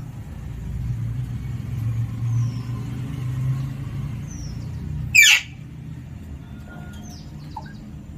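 A parrot gives one loud, harsh, falling screech about five seconds in, with a couple of faint short chirps before it. Under these runs a steady low rumble that stops as the screech comes.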